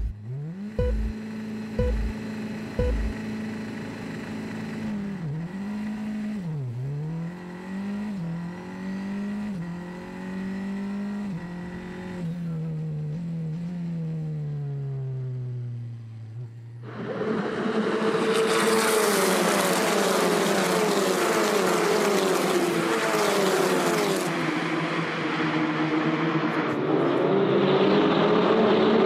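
Onboard sound of a Formula 4 car's engine pulling away from a standing start: the revs climb, dip sharply at upshifts, then slowly fall. About 17 seconds in it gives way abruptly to a louder trackside sound of race cars running past, with a steady rushing noise over their engines.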